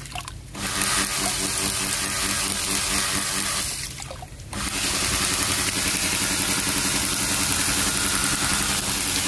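Small 12 V 775 DC motor running a homemade PVC self-priming pump through a belt, with a steady electric whine and water splashing from the pump's outlet. The sound drops briefly twice, about half a second in and again around four seconds, then picks back up.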